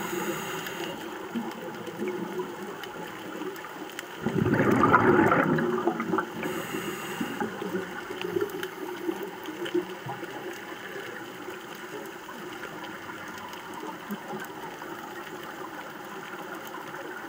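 A scuba diver's exhaled bubbles rush out once, about four seconds in, for roughly a second and a half, heard underwater through the camera housing. Underneath is a steady background of faint hiss and fine crackling.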